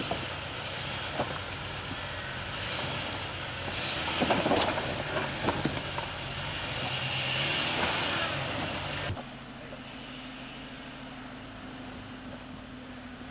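Jeep Cherokee XJ engine pulling slowly at low revs as it crawls over boulders, with knocks and scraping of the tyres and underside on rock, loudest about four to five seconds in. About nine seconds in the sound cuts abruptly to a quieter, steady engine hum from farther off.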